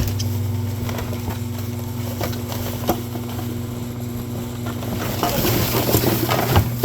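A steady low mechanical hum, with scattered light clicks and a stretch of denser clicking and rustling about five to six and a half seconds in.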